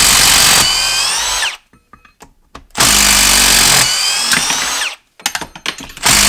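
Milwaukee brushless impact driver hammering in reverse to back Timberlok screws out of wood. Each loud burst of rapid impacts gives way to the motor spinning free with a falling whine as the screw comes loose. This happens twice, and a third burst starts near the end.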